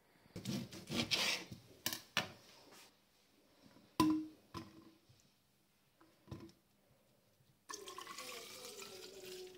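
Small handling knocks and a single sharp clink, then liquid pouring into a cup for the last two seconds, its pitch rising as the cup fills.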